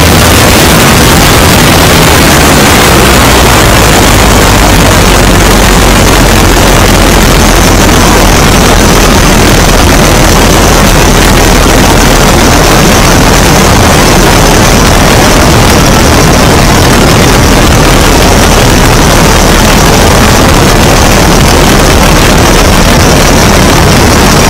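Great Lakes biplane in flight: its engine and propeller running steadily under a heavy rush of wind over the wing-mounted microphone. Loud and unbroken, with a steady low drone beneath the wind noise.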